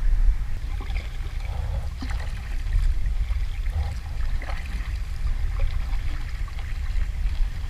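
Creek water trickling and lapping around an inflatable kayak, with small irregular paddle splashes, over a steady low rumble.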